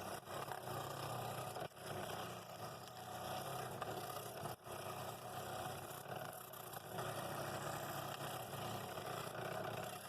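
Scroll saw running and cutting through wood, a steady motor hum with blade noise, dipping briefly twice.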